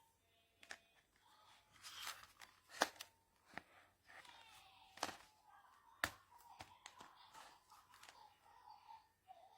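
Quiet scattered clicks and knocks, about half a dozen sharp ones, over faint background noise, like handling noise.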